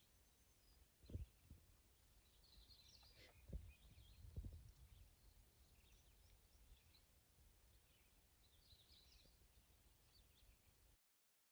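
Near silence: faint outdoor ambience with scattered faint bird chirps and a few short low thumps. The sound cuts off suddenly near the end.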